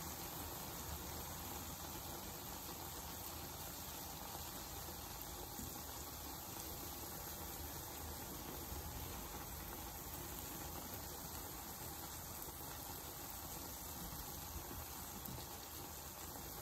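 Jalebi spirals deep-frying in a pan of hot oil: a steady sizzling and bubbling of the oil.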